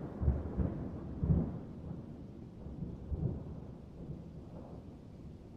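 Low rumbling noise with a few irregular deep thuds, slowly fading away.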